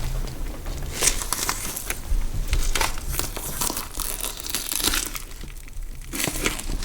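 Irregular crackling and crunching with sharper crunches every second or so over a low hum, a horror gore-style sound effect.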